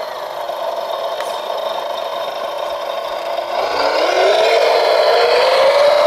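Radio-controlled Volvo wheel loader model's motor running as it drives through mud and water. Its whine sits lower and quieter at first, then rises in pitch and gets louder from about three and a half seconds in as the model speeds up.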